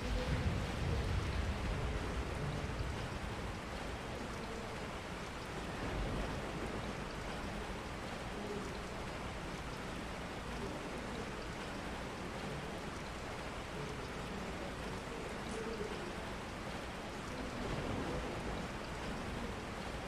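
Steady rain falling, an even hiss, with a little more low rumble in the first few seconds.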